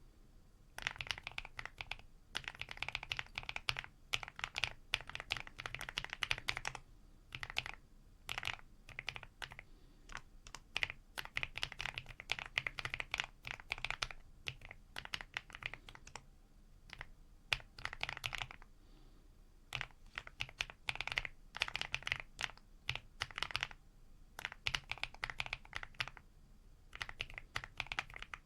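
Typing on a mechanical keyboard fitted with EPOMAKER Creamy Jade 45gf pre-lubed linear switches: quick runs of keystrokes lasting a few seconds, broken by short pauses.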